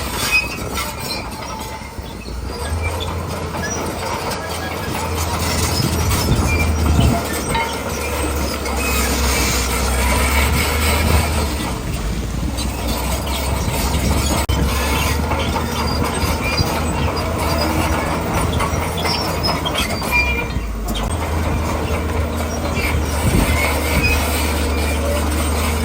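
Komatsu D41P crawler bulldozer working, its diesel engine running under load with a steady low drone while the steel tracks clank and squeal. The low drone drops out for a moment about twenty seconds in, then returns.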